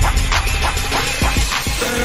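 Background music with drum hits.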